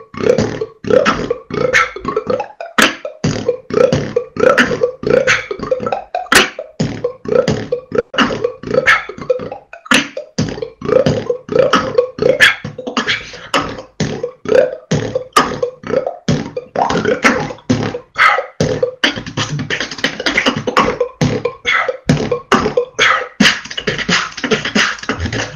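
Solo beatboxing heard over a voice-chat connection: a fast, dense run of sharp kick and snare hits with a hummed tone running under them. The pattern gets busier with more hissing hi-hat sounds in the last third.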